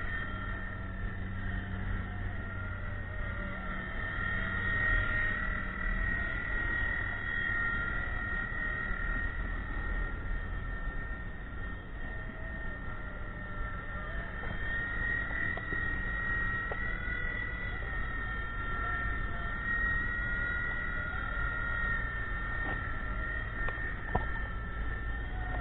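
WLtoys V911 micro RC helicopter flying: a steady high whine from its small electric motor and rotor, wavering slightly in pitch as the throttle changes, with a short tick near the end.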